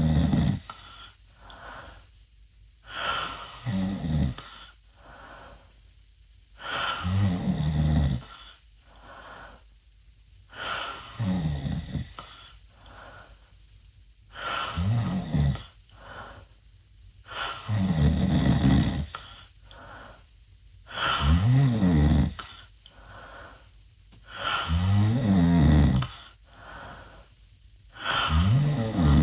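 A 16-year-old boy snoring loudly through an open mouth: about eight rough, buzzing snores, one every three and a half to four seconds and each about a second long, with a soft breath out between them.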